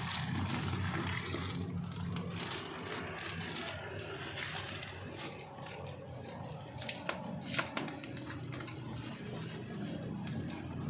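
Plastic bags of catfish fry being handled in the water, with a few sharp crinkles of plastic about seven seconds in, over a steady low hum.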